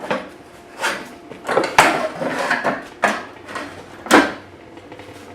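Irregular knocks and scraping clatters of workshop handling, seven or so, the loudest about four seconds in.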